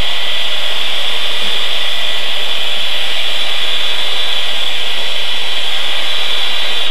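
Hand-held electric drill running steadily under load, driving the winch of a portable lift-assist frame to hoist a person off the floor in a sling. It cuts off suddenly at the end.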